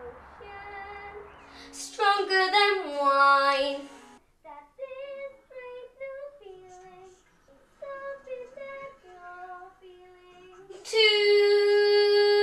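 A young girl singing a melody solo, with a loud falling phrase about two seconds in, then shorter notes, and one long held note from about eleven seconds in.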